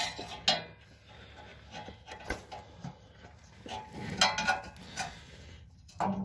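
Irregular metal clinks, scrapes and a few sharp knocks of a spring-loaded exhaust flange bolt being worked into the manifold-to-pipe flange. The loudest knock comes about four seconds in.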